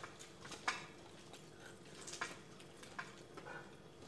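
Quiet eating sounds: faint chewing and a few soft clicks and crunches as fried chicken is picked apart and eaten over a plate, three of them a little sharper.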